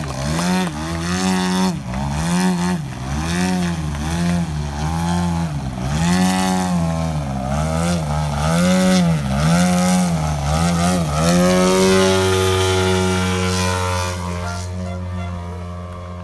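Radio-controlled aerobatic airplane hovering on its propeller, the motor's pitch rising and falling about once a second as the throttle is worked. From about twelve seconds in it holds a steady note and fades as the plane flies away.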